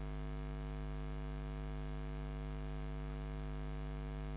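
Steady electrical mains hum on the recording: an unchanging buzz with a strong bottom note and many evenly spaced overtones, over faint hiss.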